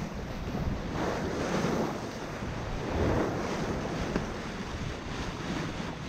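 Water rushing and splashing along the hull of a Hallberg-Rassy 54 sailing yacht under sail upwind, with wind buffeting the microphone. The swish of water swells about a second in and again about three seconds in.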